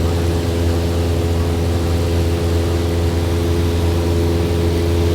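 Light aircraft's propeller engine running steadily at a constant pitch.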